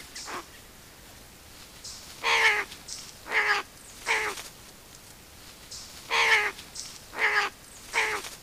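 An unseen animal calling: six short, harsh calls in two runs of three, about a second apart within each run.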